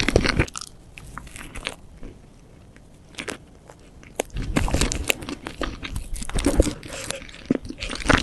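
Close-miked eating of a whipped-cream cake: a bite at the start, a quieter stretch, then from about four seconds in a run of chewing with many small clicks.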